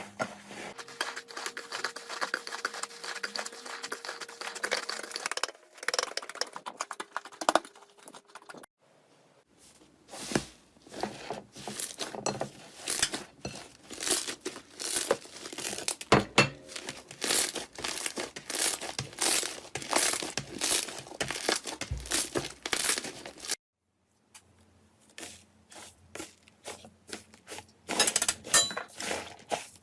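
Slime being squeezed, stretched and pressed in a run of short clips: dense crackling and popping clicks, with a short silence between clips about nine seconds in and again near the end.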